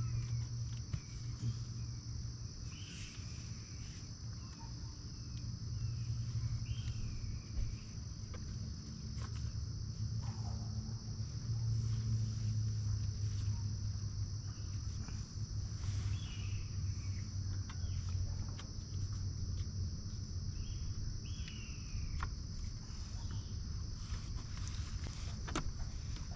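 Insects buzzing steadily at a high pitch over a low hum, with a short chirp every few seconds. Light clicks and rustles come from the fabric top of a mower bagger being handled and fitted over its plastic bins.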